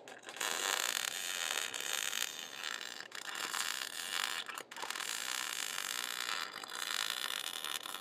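MIG welder arc crackling as short tack welds are laid on car-body steel, the arc stopping briefly and restarting a few times.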